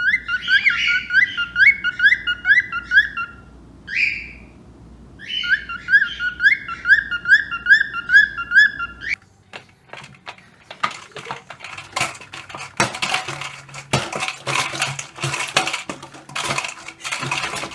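A parrot whistling a rapid series of short rising notes, about three a second, in two runs with a pause between them. This is followed by a stretch of scattered clicks, knocks and scraping.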